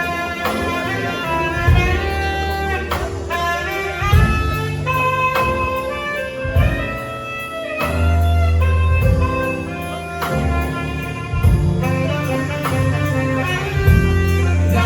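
Instrumental jazz-style music: a saxophone-like horn playing the melody over bass and drum kit.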